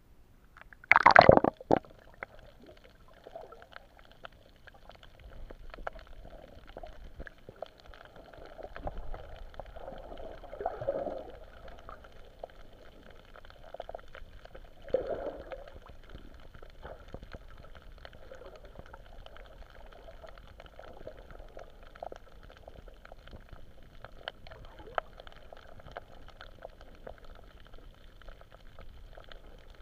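Muffled underwater sound picked up through an action camera's waterproof housing: a loud splash about a second in as the camera goes under, then low gurgling, swirling water with scattered soft clicks and knocks.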